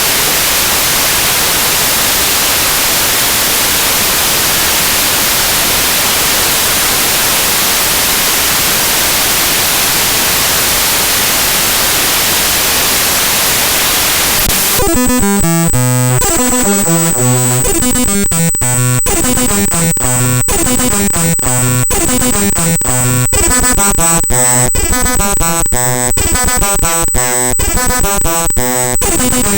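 Raw bytes of the mspaint.exe program file played back directly as audio. It begins as a steady, even hiss of noise, then about 15 seconds in switches abruptly to buzzy, repeating electronic tones broken by rapid clicks, with a high steady whine running over them.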